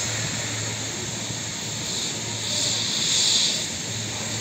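Steady outdoor city background noise with a low hum and a hiss that swells briefly about three seconds in.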